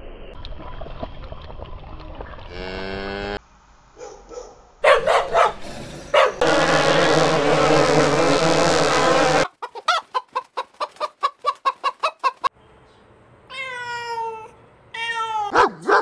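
A run of short animal sound clips cut one after another. In the middle, a honeybee colony at the hive entrance buzzes densely and steadily for about three seconds. It is followed by a fast rhythmic series of calls, about six a second, and then a German Shepherd barking near the end.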